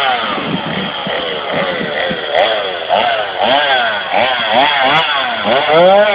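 A man imitating a chainsaw with his voice: quick revs that rise and fall over and over, about one or two a second. Near the end it slides up into a steadier held engine note.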